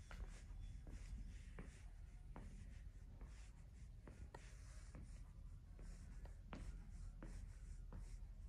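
Faint footsteps at walking pace, about one and a half to two steps a second, over a low steady hum.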